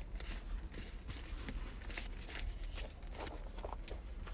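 Paper banknotes rustling and crinkling in short, irregular rustles as they are handled and counted, over a low steady rumble.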